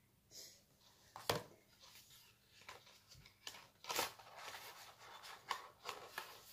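Small white cardboard accessory box from a new phone being handled and opened: a sharp click about a second in, then faint scattered clicks, scrapes and rustles of the card and packaging.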